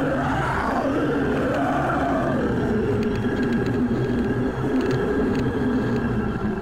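A cow bellowing: one long, wavering moo that rises and falls in pitch and dies away about two and a half seconds in, over a steady low rumble.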